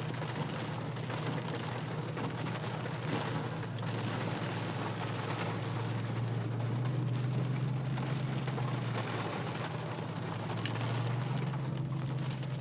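Steady low drone of a car driving, heard from inside the cabin, under a constant hiss; the hum swells a little at times.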